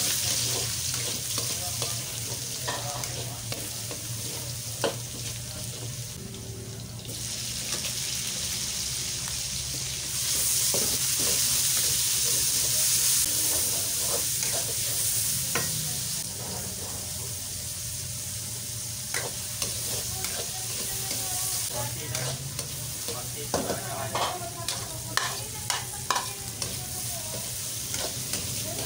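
Garlic, onion and sliced vegetables sizzling in hot oil in a wok while a metal spatula stirs and scrapes against the pan. The sizzle is loudest from about ten to sixteen seconds in, and the spatula's clicks and scrapes come thick and fast near the end.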